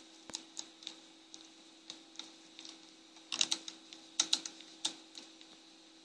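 Canon EOS DSLR's rear control dial and buttons clicking as its menus are scrolled through: short, sharp clicks at irregular spacing, with two quick runs of them a little past halfway.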